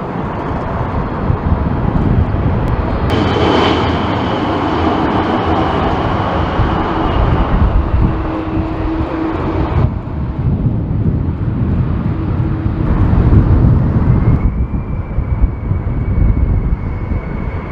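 Boeing 747 jet engines running on a landing approach, with a steady whine over heavy wind rumble on the microphone. The sound changes abruptly three times, with a higher whine from about three seconds in and a slightly rising whine near the end.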